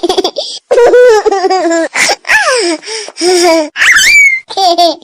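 Comedy ringtone of high-pitched, cartoonish giggling and laughing voices in short phrases, with a rising squeal about four seconds in.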